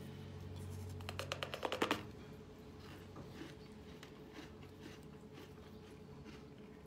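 Faint handling sounds of a hard, frozen ice-made bun turned in the fingers: a quick run of sharp clicks and scratches about a second in, then scattered faint ticks.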